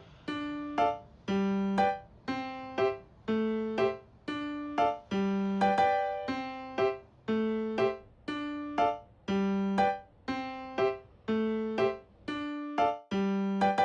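Background music: a piano-like keyboard playing a light repeating pattern of plucked notes, about two notes a second.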